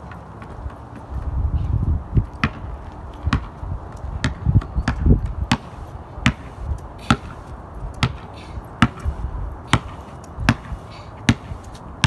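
Rubber basketball dribbled on a concrete sidewalk: a steady series of sharp bounces, about one every 0.8 seconds. Bursts of low rumble come in the first half.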